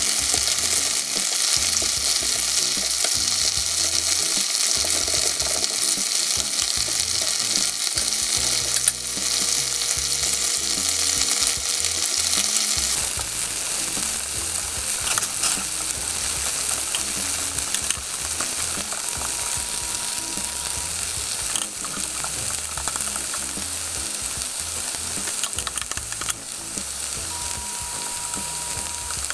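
Slices of extra-firm tofu sizzling in hot oil in a stainless steel frying pan while they are turned by hand, with a few light taps. The steady hiss eases a little about halfway through.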